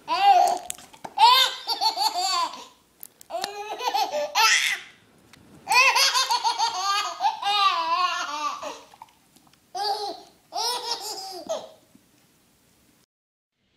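A baby laughing hard: high-pitched belly laughs in about six bouts with short breaths between them.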